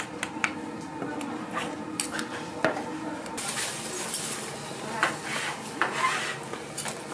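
Metal cooking utensils clinking and clattering against pans and trays in a street food stall. A steady hiss joins about halfway through.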